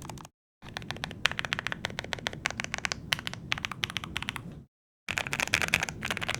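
Fast, steady typing on a Chosfox Vero75 low-profile mechanical keyboard (Kale low-profile switches, PBT keycaps, aluminium case), a thocky clatter of keystrokes. It drops to dead silence twice for a fraction of a second, about a third of a second in and near five seconds in.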